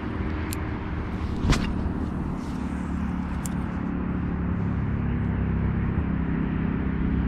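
A steady low mechanical hum with a few level pitched tones, the sound of an engine or motor running, growing slightly louder in the second half. A single sharp knock about a second and a half in, with a few lighter ticks around it.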